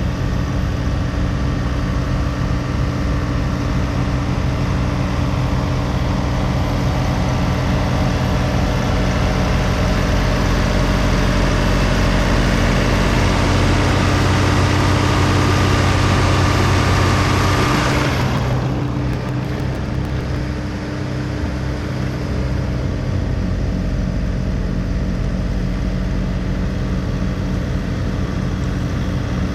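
John Deere 3046R compact tractor's diesel engine running steadily while snow blowing, with a high rushing noise over it. About 18 seconds in the rushing stops abruptly and the engine note drops, then the engine runs on steadily.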